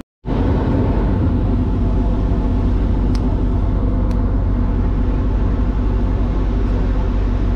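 A boat's engine running steadily under way, a low even drone with a rush of water and wind over it, starting suddenly after a brief silence at the very start.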